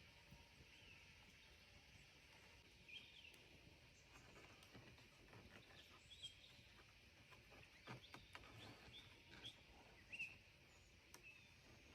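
Faint forest ambience with a few short, high bird chirps scattered through it and a handful of soft clicks.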